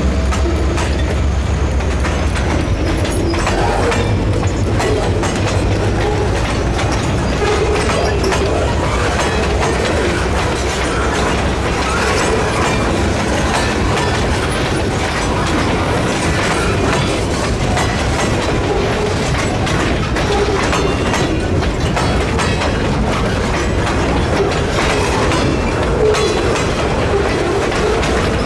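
A slow freight train's boxcars roll steadily past, their wheels clacking irregularly over the rail joints. For the first two or three seconds the low engine rumble of the departing EMD GP40 locomotives fades out beneath it.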